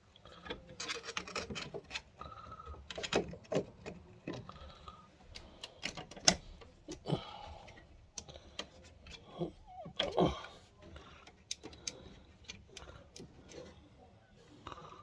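Irregular clicks, taps and knocks of computer hardware being handled by hand, with a few louder knocks and some rustling.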